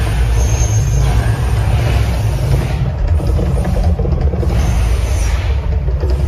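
Mirage volcano eruption show: a loud, continuous deep rumble, with noisy rushes about two and five seconds in.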